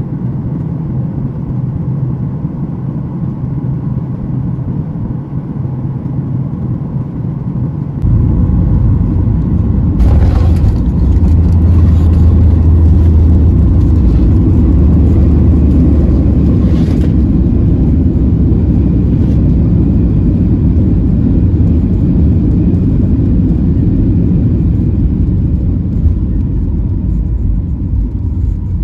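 Boeing 737-900ER landing, heard from inside the cabin: a steady engine and air noise on final, then a sudden louder rumble about eight seconds in as the wheels touch the runway. About ten seconds in a louder roar with a high whine builds and holds for some seven seconds, typical of the CFM56 engines in reverse thrust. It then eases into a steady rumble as the plane rolls out.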